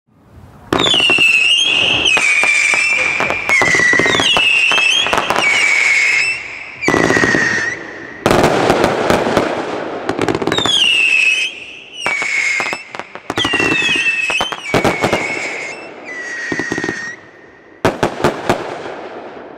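Vulcan Fireworks 'Seal' firework cake firing shot after shot: about a dozen whistling shots, each a shrill whistle that falls in pitch and then holds, over sharp pops and crackle. A denser, noisier stretch comes in the middle, and two sharp bangs come near the end.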